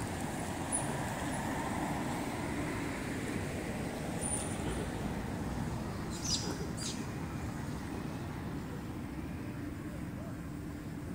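Steady outdoor background rumble, with a few faint clicks about six and seven seconds in and two brief, thin, high chirps.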